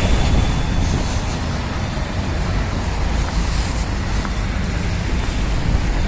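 City street traffic noise: a steady rumble of passing cars and buses, with a low buffeting rumble of wind on the microphone.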